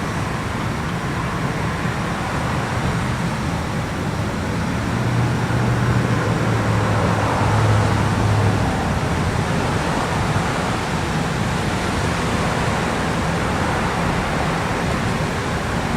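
Steady road traffic noise, with a passing vehicle's low engine hum swelling about a third of the way in and fading a few seconds later.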